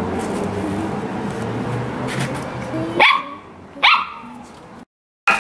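Samoyed puppy barking twice in quick succession. The barks come about three seconds in, and the sound then cuts out briefly.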